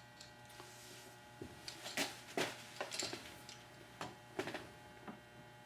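A few light clicks and knocks, about eight in all between roughly a second and a half and four and a half seconds in, as metal clamps are handled and set in place to fix a vise to a workbench.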